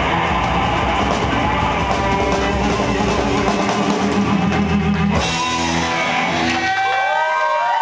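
Live rock band with electric guitar, upright bass and drum kit playing loud, then closing out the song about five seconds in. The bass and drums drop away shortly before the end, leaving ringing guitar and rising and falling whoops from the crowd.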